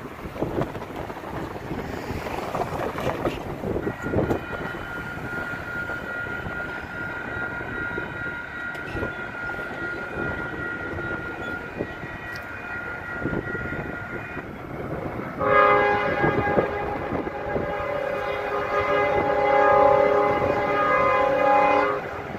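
Freight locomotive's air horn sounding for a grade crossing as the train approaches: faint, steady tones through the first half, then a loud, sustained multi-note horn chord from about two-thirds of the way in, with a short break near the end.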